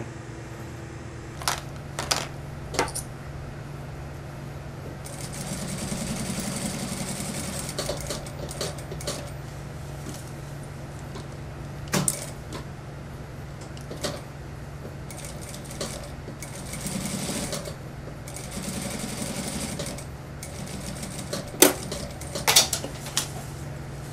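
Industrial lockstitch sewing machine topstitching a jacket in three short runs of a few seconds each, over a steady low hum. Sharp clicks and knocks fall between the runs, the loudest pair near the end.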